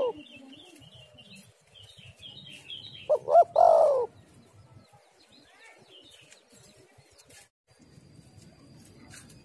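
Spotted dove cooing one phrase about three seconds in: two short notes followed by a longer coo that falls in pitch.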